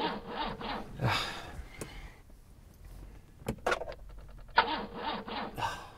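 Handling sounds inside a car: a few sharp clicks and knocks and a short, rapid run of ticking as the ignition is tried, with no engine catching. Soft rustling and low voices come in and out.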